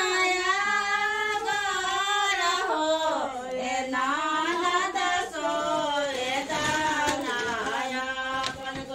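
Women's voices singing a traditional ceremonial song together, without instruments, in long held, gliding phrases.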